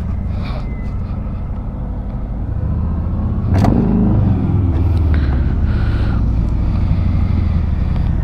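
Motorcycle engine idling steadily, growing louder after a single knock about three and a half seconds in.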